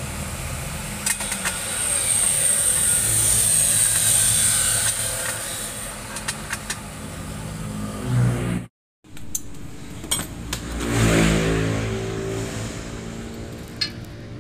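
A motor vehicle engine running, its pitch swelling up and back down about eleven seconds in, with a few light clicks and knocks over it. The sound drops out completely for a moment just before nine seconds.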